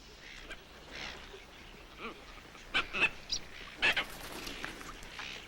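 Rufous night herons giving several short, harsh squawks in quick succession, about three to four seconds in.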